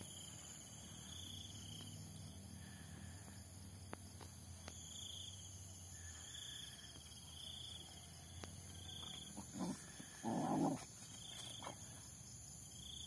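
Steady chorus of insects trilling, with a higher note that swells and fades every second or so, over a faint low hum. About ten seconds in comes a brief, louder sound twice in quick succession.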